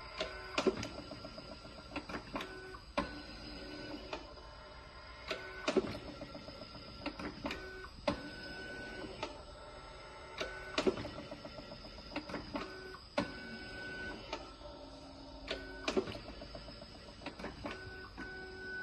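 Small PLC-controlled automatic candy depositor running: a knock about every two and a half seconds in a repeating cycle, with smaller clicks between and a motor whine that switches on and off.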